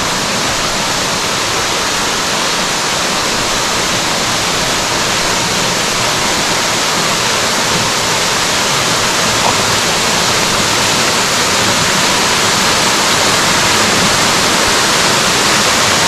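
Blue Basin Waterfall pouring into its pool: a loud, steady rush of falling water, growing slightly louder toward the end.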